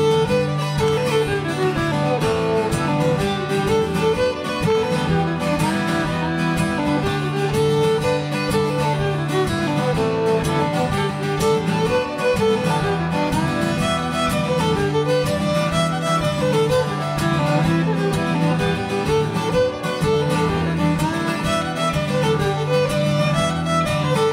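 Live fiddle and guitar playing a contra dance tune: the fiddle carries a quick-moving melody over a steady guitar accompaniment, without a break.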